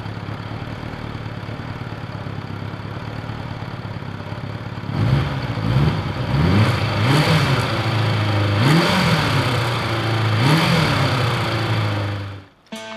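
Kawasaki Zephyr motorcycle's air-cooled inline-four engine idling steadily, then blipped up and back down several times from about five seconds in. The sound cuts off abruptly just before the end.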